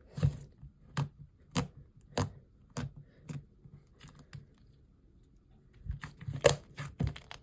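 Slime being squeezed and stretched by hand, giving sharp sticky clicks and pops about every half second, pausing for a couple of seconds, then a few more clicks near the end.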